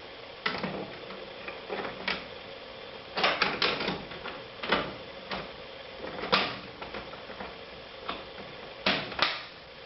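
Irregular light clicks and taps of a laptop's plastic case parts and a small screwdriver as the frame is reassembled and its screws are driven back in, some in quick clusters.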